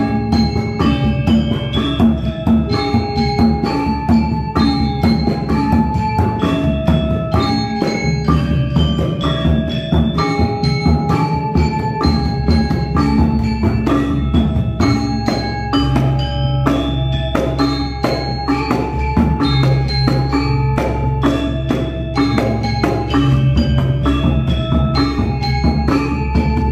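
Gamelan ensemble playing: bronze metallophones struck with mallets in a dense, even run of ringing pitched notes, with deeper low tones joining about halfway through.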